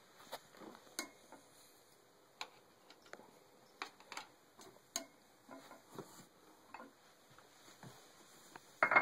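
Irregular light clicks and taps of a cat's food dish and food being handled on a toilet lid, with a short louder burst near the end.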